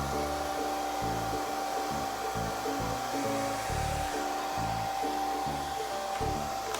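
Hand-held hair dryer running steadily, a rushing blow with a high whine held on one pitch, switched off abruptly near the end. Background music plays under it.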